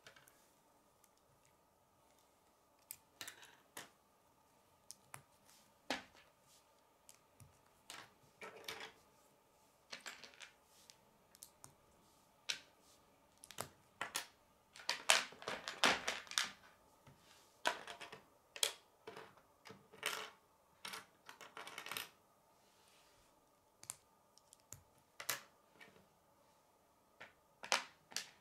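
Plastic K'nex rods and connectors clicking as they are snapped together, with pieces tapping down onto a wooden tabletop. The clicks come in irregular clusters, thickest around the middle.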